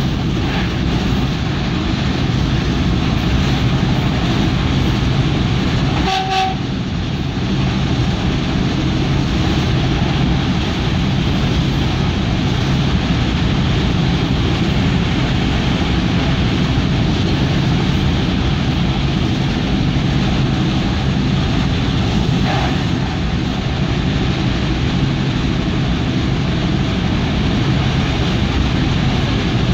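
A passenger train running at speed, heard from inside the carriage as a steady rumble and rush. About six seconds in, a brief high tone sounds over it.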